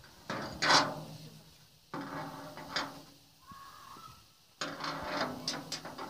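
A steel rod used as a key scraping and clicking in the keyhole of a steel door as it works a hidden lock mechanism, in several bursts of metallic rattling, the loudest about a second in and a dense run of clicks near the end.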